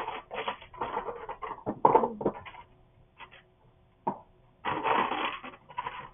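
Plastic Lego chess pieces clattering and rubbing as hands rummage them out of the compartments of a Lego chess box. The rattling goes quiet for a couple of seconds midway, with a single click, then picks up again near the end.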